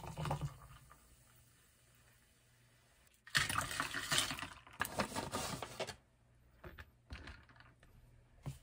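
Sparkling water poured into a tall glass at the start. About three seconds in, ice is tipped from a plastic scoop into the glass: a dense clatter and crackle of ice against glass and liquid lasting about three seconds. A few light taps follow near the end.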